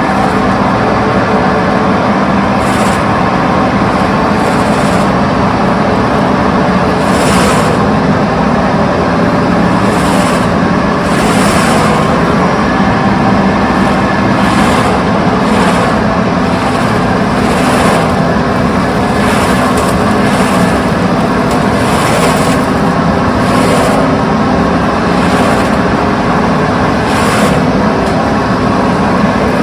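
Heavy diesel engine of a Doosan DX340LC excavator running steadily at high revs, with brief hissing surges every second or two.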